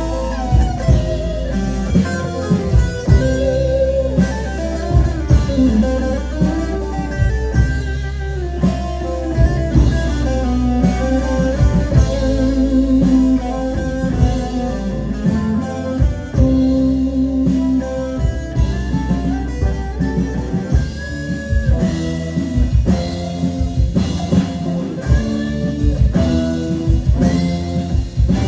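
Instrumental rock passage without vocals: guitar playing held, wavering lead notes over a drum kit.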